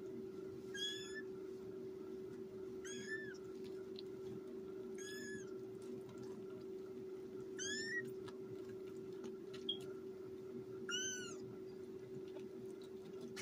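Kittens about 18 days old mewing: five short, high-pitched mews spaced a few seconds apart.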